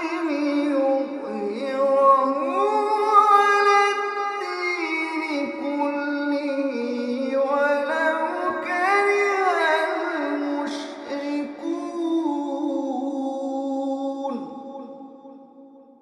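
A man reciting the Quran in slow, melodic tajweed chant: long drawn-out phrases with gliding ornaments, fading away near the end.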